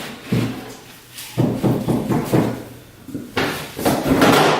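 Knocks and rattles of equipment being handled and moved about, with the loudest clatter near the end.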